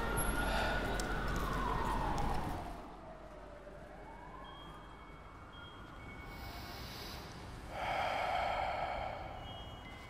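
Emergency siren wailing in a slow rise and fall of pitch over street noise; the street noise drops away about two and a half seconds in and the siren goes on more faintly. Near the end a louder, noisy sound lasts about a second and a half.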